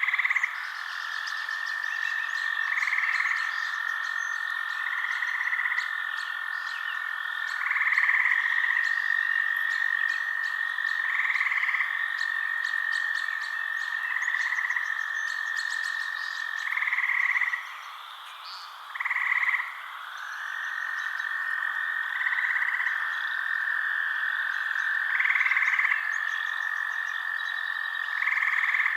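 Night frog chorus: a steady high trill with louder calls repeating every two to three seconds and faint chirps above. The trill drops out for a moment about two-thirds of the way through, then slides back in.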